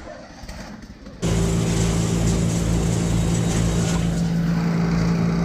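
A machine engine starts sounding abruptly about a second in, then runs loud and steady at one constant speed.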